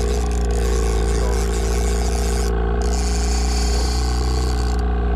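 Trolling reel being cranked, a steady gear whir in two long stretches with a short break about two and a half seconds in, over the steady low drone of the boat's motor.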